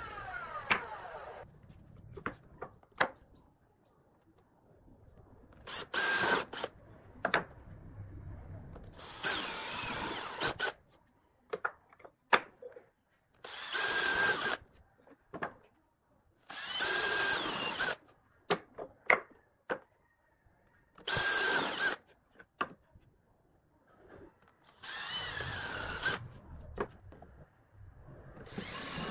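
Cordless drill with a countersink bit boring into pine slats in about six short bursts, with clicks and knocks of the wood being handled between them. At the start a table saw's motor winds down.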